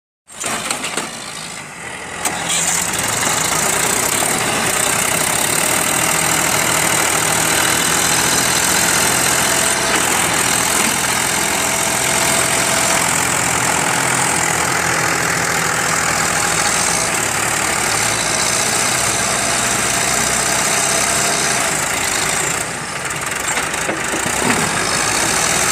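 Mahindra 275 DI tractor's diesel engine running steadily under heavy load as it strains to haul a loaded trolley out of mud, its front wheels lifting.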